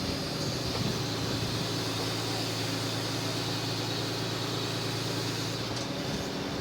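Engine running steadily while working a Munck GFT 10.000 forestry crane, with a steady low hum that grows stronger about a second and a half in and eases off near the end, and a thin high whine above it.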